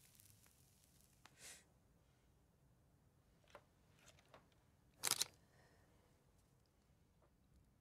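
A handheld camera's shutter clicks once, a short sharp double click, about five seconds in. Before it there are only a few faint rustles and ticks against near silence.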